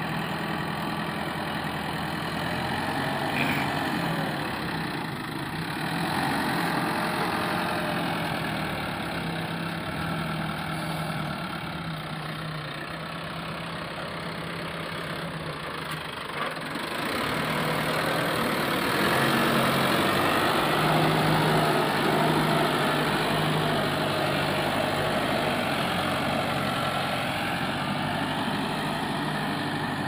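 Mahindra Arjun tractor's diesel engine running steadily while working a front loader in soil, growing louder a little past halfway through.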